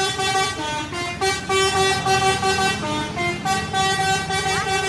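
A bus's Basuri multi-tone 'telolet' musical horn playing a tune: loud horn notes that step up and down in pitch several times a second, over a low rumble.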